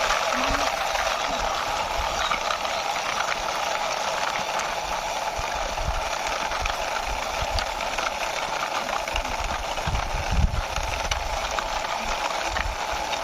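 Toy six-wheeler fire truck pushed along by hand, its wheels rolling and rattling with irregular low rumbles, over a steady background hiss. A louder bump comes about ten seconds in.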